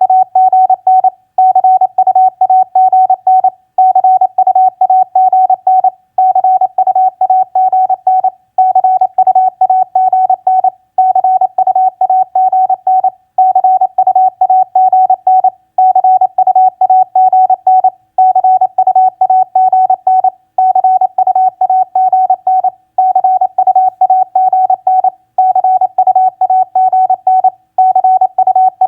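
Morse code practice tone at 28 words per minute: a single steady beep keyed rapidly into dots and dashes, sending common on-air contact abbreviations such as TU, FB and CUAGN. Short pauses break the stream about every two and a half seconds.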